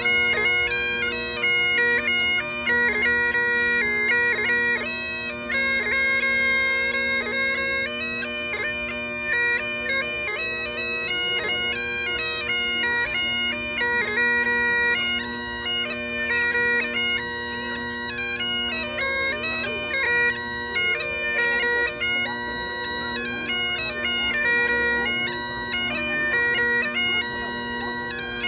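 Great Highland bagpipes playing a traditional tune: steady drones held under a quick-moving chanter melody.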